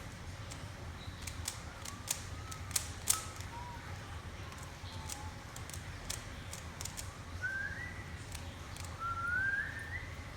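Rubik's cube being turned quickly during a speed solve: a rapid, irregular run of small plastic clicks. Someone whistles softly, a wavering tune that rises and gets louder near the end.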